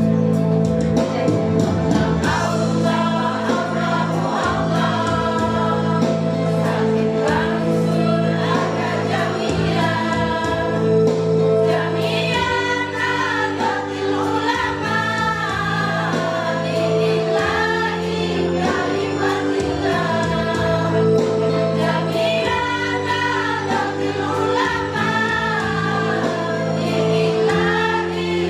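School choir singing in unison over held instrumental chords, the voices becoming fuller about twelve seconds in.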